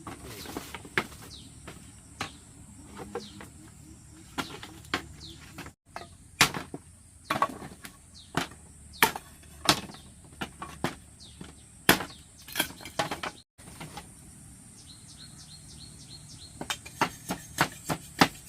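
Hand-tool strikes during floor building work: irregular sharp knocks, with a quick run of blows, about three a second, near the end. Faint insect and bird chirps sound underneath.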